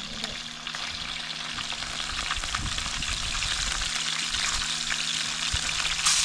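Pieces of piau fish frying in hot fat in a cast-iron skillet: a steady sizzle with fine pops that grows louder as more pieces are dropped in, with a sharp rise near the end.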